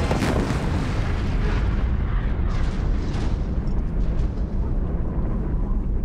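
A building collapsing in a demolition: a crash, then a long, heavy rumble of falling debris. The higher crackle fades after about three and a half seconds while the low rumble carries on.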